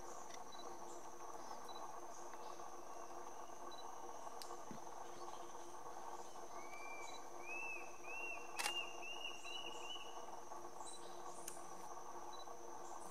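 Forest ambience with a steady high insect drone. Partway through, a bird calls a series of about eight short arched notes that rise slightly and come faster, and a single sharp click sounds among them.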